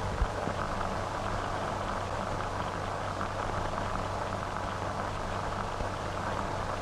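Steady hiss and crackle with a low hum: the surface noise of an old 1940 optical film soundtrack, with no other sound over it.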